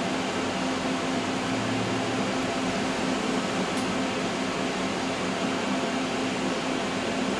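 Steady hum of a powered-up Fadal CNC control, its cooling fans running with a low drone underneath.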